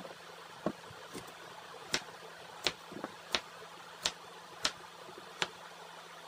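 Kitchen knife chopping squash on a cutting board: about eight sharp knocks of the blade striking the board, in a steady rhythm of roughly one every 0.7 seconds.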